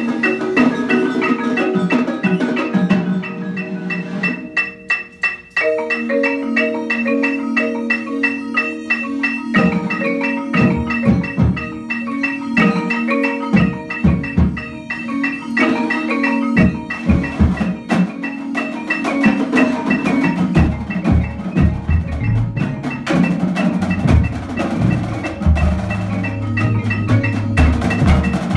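School percussion ensemble playing: marimbas and other mallet keyboard instruments carry a repeating pitched pattern, and low drum hits from bass drum and drums join in about a third of the way through.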